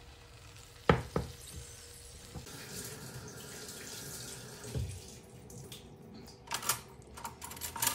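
Kitchen sounds at a pot of shorba: two sharp knocks against the pot about a second in, a faint watery sound from the soup, and a few quick clatters near the end.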